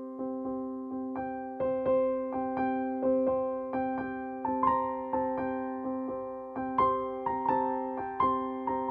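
Background piano music: a slow melody of struck notes, each fading away, over a held chord.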